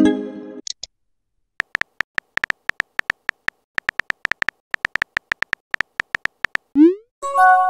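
Texting-app sound effects: a message chime fading away at the start, then several seconds of rapid keyboard tap clicks as a message is typed. Near the end comes a short rising whoosh as the message is sent, followed at once by another chime.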